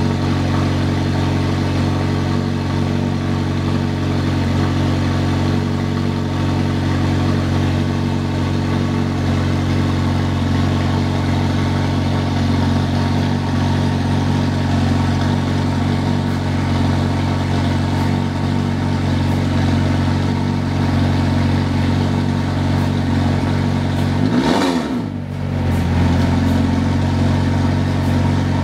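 McLaren 720S Mansory's twin-turbo V8 idling steadily through its exhaust, with one quick blip of revs near the end that rises and drops away.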